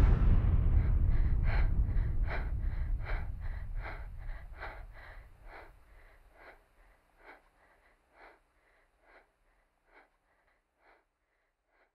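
Fast, rhythmic panting, about two and a half breaths a second, that slows and grows fainter until it dies away near the end. A low rumble fades out under it over the first half.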